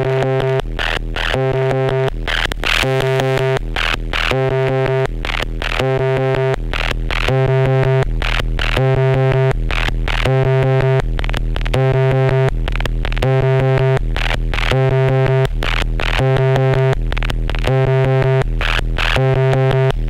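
Twintropiques 23 Psychoacoustic synthesizer playing a looping electronic pattern: a low pulsing bass note, a buzzy pitched tone and sharp noisy hits, repeating in a steady rhythm.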